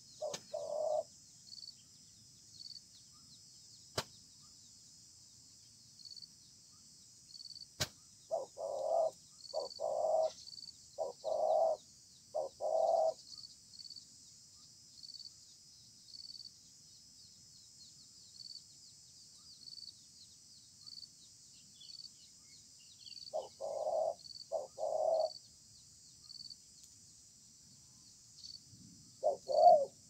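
Spotted dove cooing: short phrases of three or four notes, heard just at the start, about 8 seconds in, about 23 seconds in and again at the end. Behind it, a steady high hiss with a faint chirp repeating about every second.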